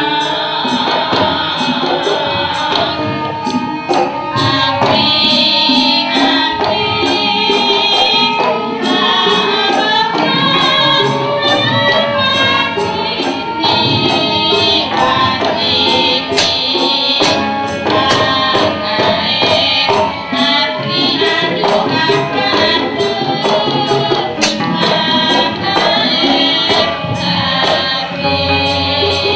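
Javanese gamelan accompaniment for a wayang kulit shadow-puppet play, with singing over the ensemble. Sharp clacks recur rapidly all through: the dalang's keprak and cempala knocking, typical of a puppet fight scene.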